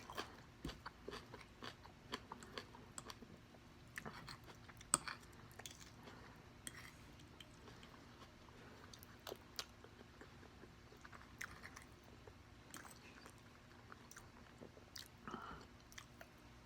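A person chewing food close to the microphone: soft, irregular mouth clicks and bites, busier in the first several seconds and sparser after.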